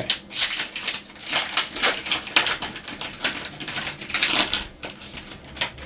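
Foil trading-card booster pack being torn open by hand, its wrapper crinkling and crackling in a quick irregular run of sharp rustles.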